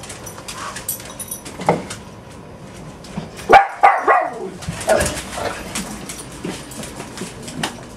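A dog giving short barks, the loudest a quick run of about three near the middle, with single ones before and after.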